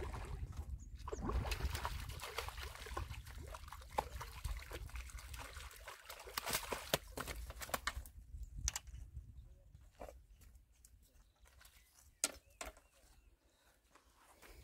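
Hooked rohu splashing in shallow water as it is drawn in to the bank. After about eight seconds the splashing stops, leaving a few sharp knocks and rustles.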